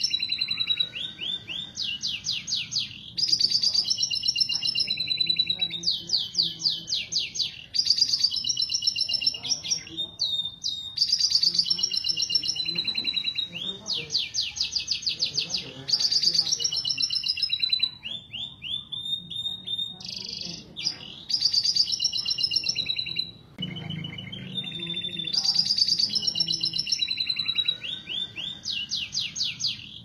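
Domestic canary breeding song: a male singing continuously in high-pitched phrases of fast trills and rolling repeated notes, with short pauses between phrases.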